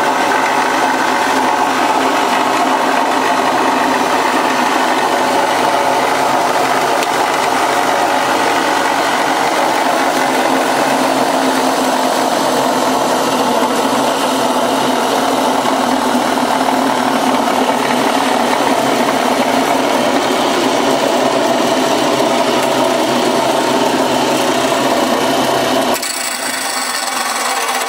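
Vintage Hopkins bench grinder with a 240-volt single-phase motor running steadily, its grinding wheel spinning free. About two seconds before the end a steel bar is pressed against the wheel, and the sound turns to grinding metal.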